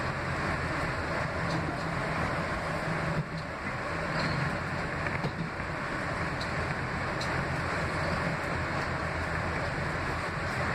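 R160B subway car running at speed, heard from inside the car: steady running noise with a few faint clicks.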